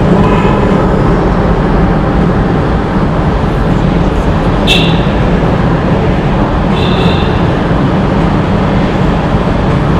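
Steady, loud rumble of a car driving through a road tunnel, heard from inside the car. Two short high tones sound about five and seven seconds in.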